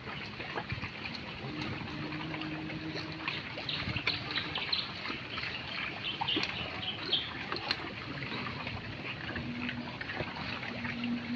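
A herd of pigs foraging in grass and leafy undergrowth: a dense, crackling rustle of many snouts and mouths chewing and pulling at the plants. A low, steady hum comes in twice, briefly.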